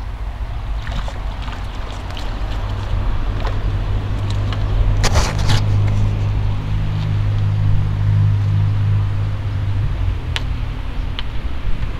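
A motor vehicle's engine running close by: a steady low drone that grows from about two seconds in and eases off near the end. Scattered light clicks and a short rustling burst about five seconds in.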